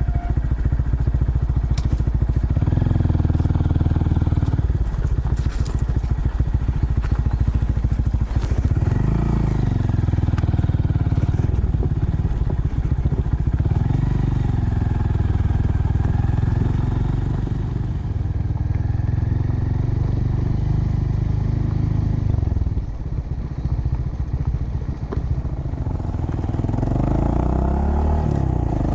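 Honda Monkey minibike's small single-cylinder four-stroke engine running on the move, its revs rising and falling several times with the throttle. It eases off for a few seconds past the middle before picking up again near the end.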